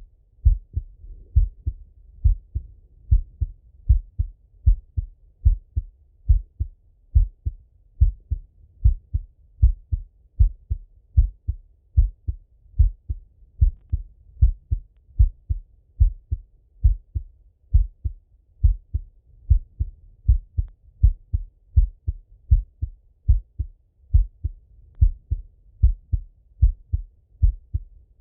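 A man's heartbeat heard through a Littmann stethoscope: a steady, slow rhythm of low, muffled thumps, about two a second.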